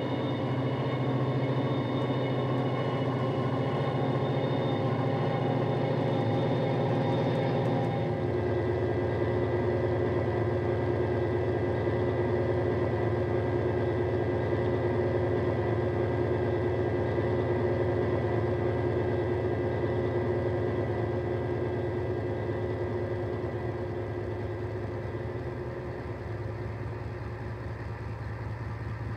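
Sound-equipped Dapol Class 68 model locomotive playing a Coastal DCC sound file of a Class 68 diesel engine through an EM2 speaker, a deep, bass-heavy engine sound. The engine note drops to a lower, steady pitch about eight seconds in as the model comes to a stand, then idles, getting a little quieter toward the end.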